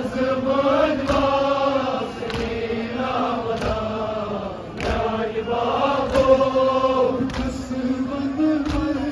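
Men chanting a Kashmiri noha, a Muharram lament, in long drawn-out notes. A sharp slap comes about every 1.2 s from the mourners beating their chests in time.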